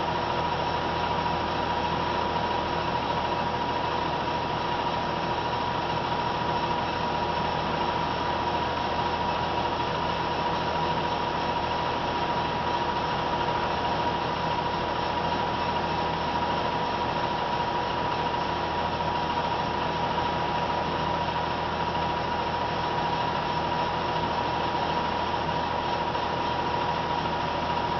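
Molins Mk8 cigarette-making machine running steadily: a dense, even mechanical whir with a constant high whine through it.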